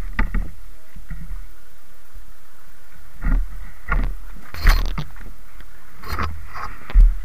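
Handling noise on an action camera being moved about: a run of scattered knocks and scrapes against the camera, with a dull thump near the end as loudest, over a steady low hum.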